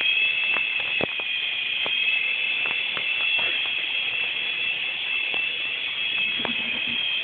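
A toy helicopter's small electric motor and rotor whining steadily at a high pitch, with scattered light clicks over it.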